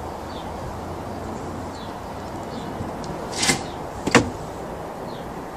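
A hollow plastic knock from a water-butt lid as a cat jumps off it: a brief scrape and then one sharp knock about four seconds in, over steady outdoor hiss with faint bird chirps.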